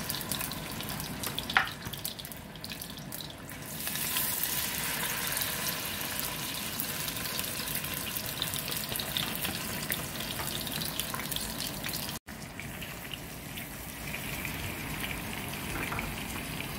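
Salmon pieces sizzling in hot oil in a nonstick pan, a steady hiss, with one sharp knock about a second and a half in.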